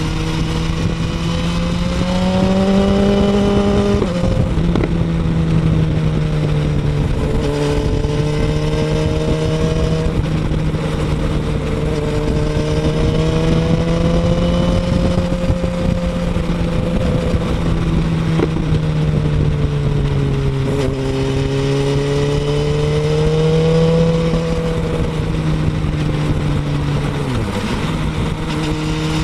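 2017 BMW S1000RR's inline-four engine running through a Pro-Race aftermarket end can, heard close up from under the rear cowl while riding at steady revs that drift gently up and down. The revs climb and then drop sharply about four seconds in, and dip briefly and come back near the end.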